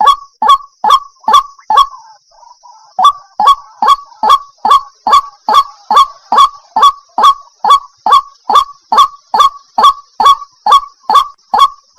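Water hen (jal murgi) calling: a steady series of short, harsh, honking notes, about two a second, with a brief pause about two seconds in.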